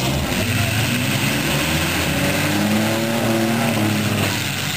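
Demolition derby car engines revving hard under load as the cars shove against each other, the engine note climbing and then holding high.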